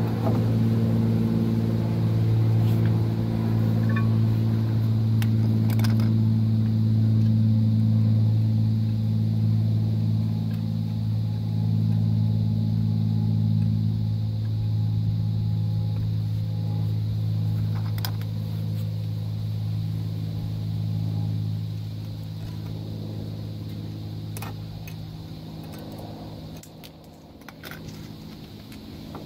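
A steady low engine hum that fades away over the second half. A few light metallic clicks come through as drum brake shoes and hardware are handled on the backing plate.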